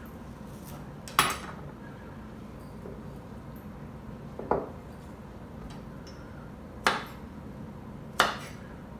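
Four separate sharp clinks and knocks of kitchenware, a second or more apart, each ringing briefly. They come from knife, cutting-board and glass-jar handling while zucchini is cut and packed for pickling.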